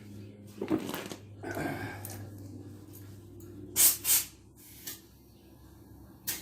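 A few soft handling noises, then two short, loud hisses of air in quick succession at a bicycle's front tyre valve as the pump is worked on it. A steady low hum runs underneath.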